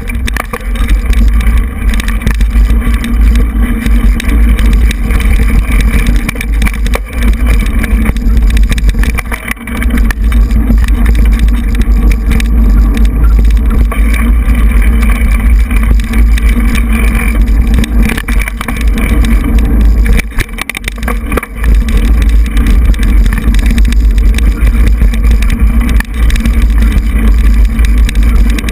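Mountain bike riding over a dirt singletrack, heard through a bike-mounted GoPro: a loud, steady low rumble of wind and trail vibration, with many small knocks and rattles from bumps. The rumble eases briefly about ten seconds in and again around twenty seconds in.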